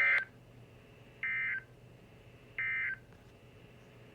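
Three short bursts of NOAA Weather Radio SAME digital data tones, about 1.3 s apart: the end-of-message code that closes the required weekly test broadcast.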